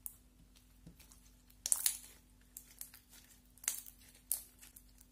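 Pink slime being pressed flat and squeezed by hand, giving short sticky crackles. The loudest cluster comes about two seconds in, with two more sharp ones near the end.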